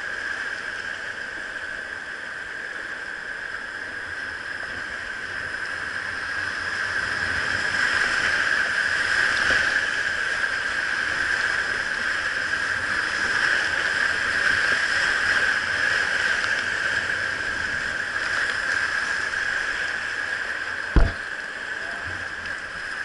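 Rushing whitewater of river rapids heard from a kayak, a steady hiss that swells louder through the middle and eases near the end. A single sharp knock sounds near the end.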